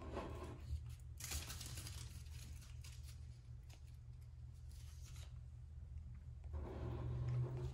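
Soft rustling and handling noises, with a brighter rustle about a second in, over a steady low hum.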